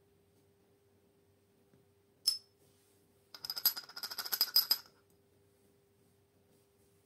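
Small hard objects clinking: one sharp clink about two seconds in, then a quick rattling run of many clinks lasting about a second and a half.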